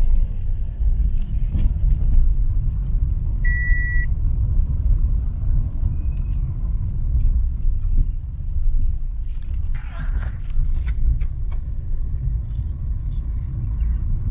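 Car engine and tyre noise heard from inside the cabin as a steady low rumble. A short electronic beep sounds about three and a half seconds in, and a brief rush of noise passes around ten seconds in.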